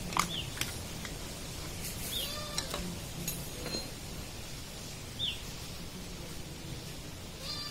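Outdoor background with birds chirping: a few short calls a couple of seconds apart. A brief animal call comes about two seconds in.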